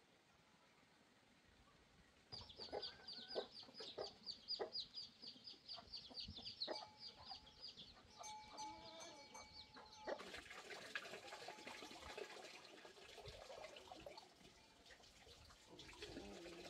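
Chickens clucking and chirping around a farmyard coop, starting about two seconds in, with a long run of fast, repeated high-pitched chirps. About ten seconds in the sound changes to a steady faint hiss.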